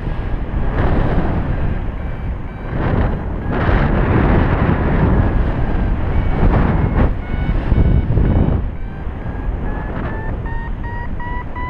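Wind rushing and gusting over the microphone in flight, easing off after about eight seconds, with a paragliding variometer beeping in an even series of short tones. In the last few seconds the beeps rise gradually in pitch, the vario's sign of a strengthening climb.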